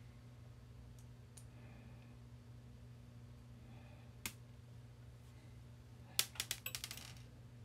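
Small clicks and taps from hands handling the opened AKAI GXC-709D cassette deck's metal chassis and parts: one click about four seconds in, then a quick run of sharp clicks near the end, over a steady low hum.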